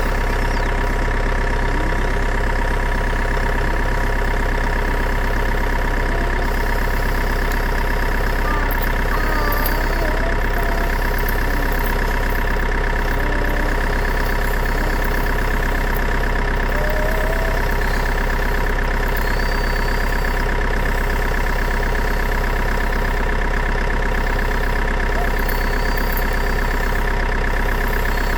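Engine idling steadily: a constant low hum with a fixed set of tones and no change in speed.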